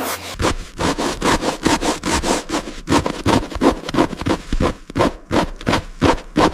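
Rapid back-and-forth scrubbing strokes, about four a second, of something rubbing hard across a surface.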